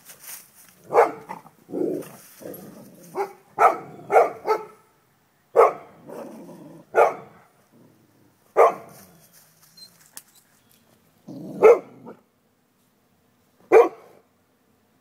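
Dogs barking in short, sharp, irregular barks, about ten in all, with lower, drawn-out growling between some of them, as dogs on either side of a wooden fence challenge each other.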